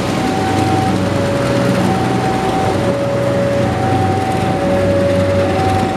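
BB 203 diesel-electric locomotive running as it hauls a passenger train slowly past, a steady engine drone. Over it an electronic two-tone warning alarm alternates high and low, each tone about a second long.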